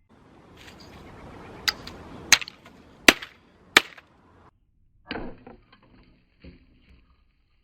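A typewriter being smashed: four sharp, loud blows over a rustling scrape, then a few lighter knocks.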